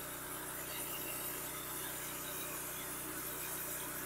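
Pressure washer wand spraying water through a fan tip onto vinyl siding and a door: a steady hiss with a low, even hum underneath.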